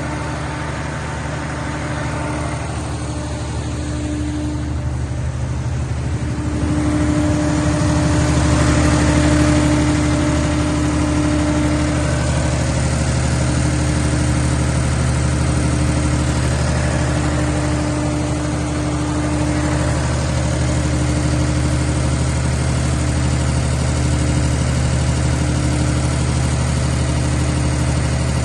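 220 kVA Cummins diesel generator engine running steadily with a deep, even hum. It grows louder about seven seconds in, then holds steady.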